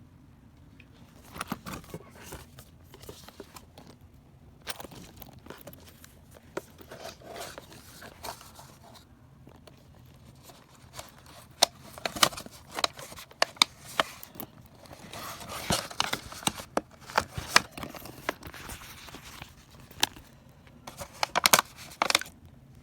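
Hands handling and unpacking packaging: irregular tearing, crinkling and scraping with sharp clicks, in louder bursts in the second half.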